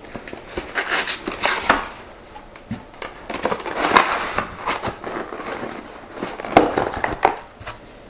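Cardboard box of an SSD upgrade kit being opened and unpacked by hand: irregular rustling and scraping of cardboard, with several sharp knocks as the contents and a plastic tray are set down on a table.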